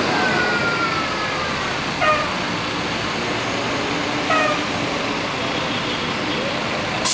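Passing buses sounding multi-tone 'telolet' horns: a horn tone slides down in pitch, then two short horn toots come about two seconds apart, over steady traffic and crowd noise. A sudden hiss starts right at the end.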